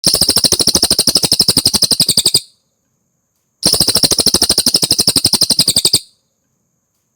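Cililin songbird song from a masteran recording: two rapid, evenly pulsed trills of about two and a half seconds each, roughly a dozen notes a second, separated by a pause of just over a second.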